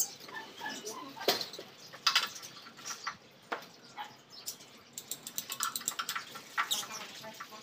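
Small caged birds chirping in short, scattered calls, mixed with sharp clicks and knocks from a door being opened and handled.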